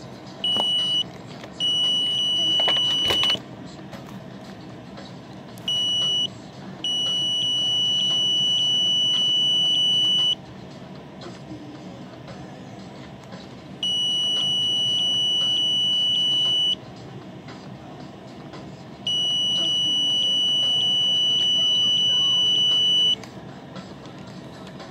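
Handheld microwave/RF detector sounding a loud, steady, high-pitched electronic tone in irregular spells, some under a second and others about three to four seconds long, with gaps between. The tone signals that the detector is picking up microwave or radio signals.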